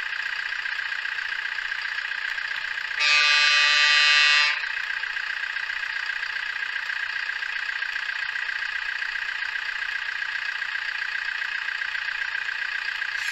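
Truck engine idling sound effect played from a DFPlayer Mini MP3 module through a small breadboard speaker. About three seconds in, a truck horn sound effect blasts once for about a second and a half over the idle.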